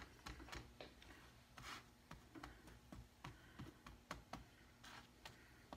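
Faint, irregular light taps and clicks of a spatula against the griddle plate of an electric smokeless grill as pita breads are lifted and shifted, over a faint steady low hum.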